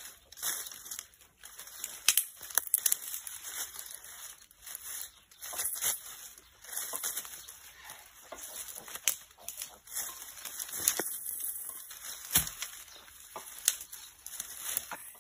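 Dry brushwood stalks rustling and crackling as they are handled and pressed into bundles, with frequent sharp snaps of twigs breaking, a few of them louder.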